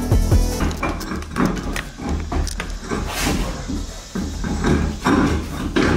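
Background electronic music with a heavy, steady bass line and rhythmic percussive hits.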